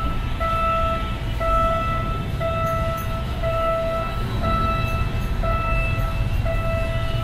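A high warning tone beeping about once a second, each beep about half a second long, over a steady low rumble as a KiHa 52 diesel railcar approaches.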